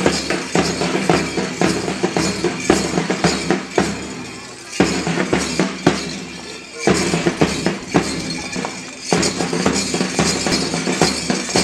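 Music with a steady percussive beat accompanying a school march past. It breaks off briefly twice near the middle.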